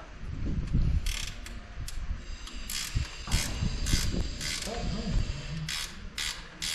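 Ratchet spanner being worked in a run of short clicking strokes, turning a fastener on the motorcycle engine.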